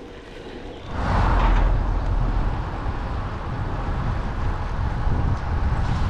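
Road and wind noise on a bicycle-mounted action camera while riding: a steady low rumble that comes in much louder about a second in.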